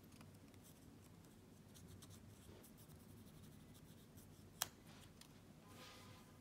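Faint scratching and ticking of a thin plastic cleaning sheet worked between the two plates of a Pilot Parallel pen's nib, with one sharp click about four and a half seconds in.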